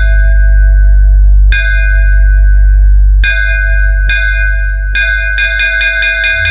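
DJ remix bass-test track: a heavy, sustained sub-bass under a bell-like synth tone. The tone is struck about every second and a half, then repeats rapidly through the second half, and a bass sweep rises near the end.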